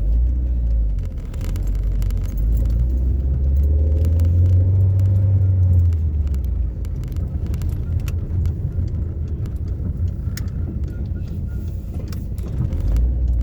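Car being driven: a steady low engine and road rumble, with light rattling clicks over it.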